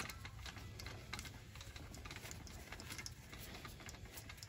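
Faint scattered small clicks and handling noise as the set screw on the metal clamp holding a cordless screwgun is tightened, over a low steady hum.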